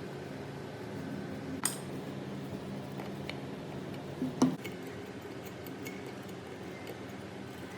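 Metal parts or tools clinking as they are handled, with a sharp clink about one and a half seconds in and a louder one about four and a half seconds in, over a steady low hum.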